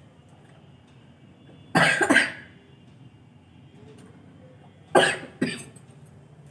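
A woman coughing: two double coughs about three seconds apart. She has a lingering cough and cold.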